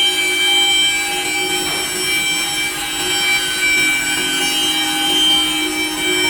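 A two-head 5-axis CNC wood router's spindles are cutting curved wooden parts. There is a steady whine of several tones over the noise of the cut, and the pitch shifts slightly partway through.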